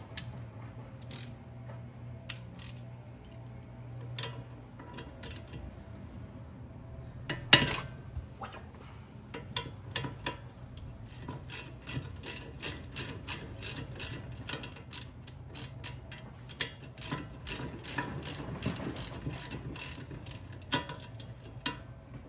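Hand ratchet wrench clicking as a bolt on the upper control arm is worked loose. The clicks come in scattered short runs at first, then after a sharp knock about seven and a half seconds in they turn into a fast, steady ratcheting.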